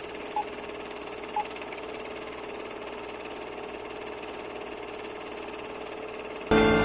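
Film projector sound effect running with a steady mechanical whirr, with two short beeps a second apart near the start. Music cuts in suddenly near the end.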